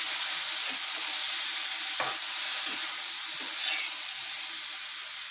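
Mixed vegetables (cabbage, capsicum and onion) sizzling in hot oil in a kadhai while a spatula stirs them, with a few short scrapes and taps against the pan.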